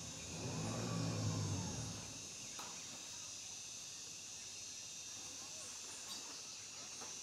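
Insects calling in a steady high-pitched chorus at a tropical riverside at dusk, with a low drone that fades out about two seconds in and a few faint short chirps later.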